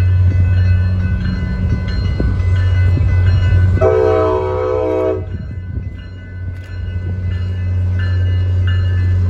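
Grade-crossing warning bells ringing in a steady repeating pattern as an MBTA commuter train's diesel locomotive approaches. The locomotive sounds its horn in one blast of a little over a second, about four seconds in. A low steady rumble runs underneath.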